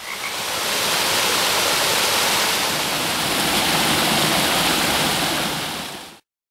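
Small waterfall in a woodland creek, water pouring over rocks in a steady rush. It cuts off suddenly near the end.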